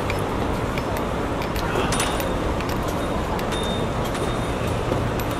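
Steady city street traffic noise, with scattered light clicks.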